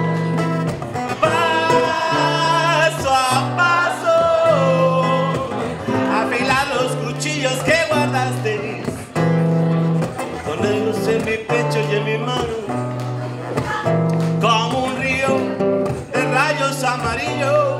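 Live song: a man singing at the microphone over strummed acoustic guitar, with a low note repeating about once a second beneath.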